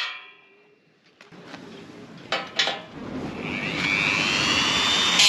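Power drill driving an oversized, worn drill bit into a solar-panel mounting tab: a few handling knocks, then the motor spins up about three seconds in, its whine rising and settling into a steady high whine over loud grinding noise as the bit cuts.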